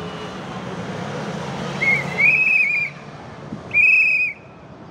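A whistle blown in two loud trilling blasts, the first about two seconds in and the second near four seconds, over the steady hum of cars passing in the race convoy.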